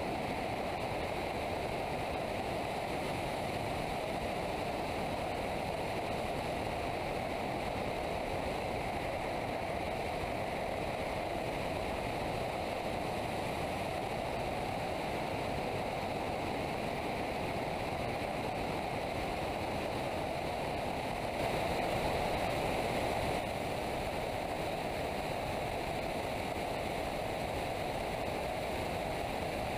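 Steady rush of airflow over a camera mounted on the outside of an ASK 21 glider being aerotowed, a continuous wind noise that swells a little for a couple of seconds about two-thirds of the way through.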